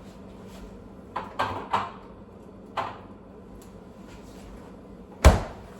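Kitchen handling sounds: a quick run of three knocks about a second in, another knock a second later, then one loud, heavy thud near the end, like a cupboard or freezer door shutting.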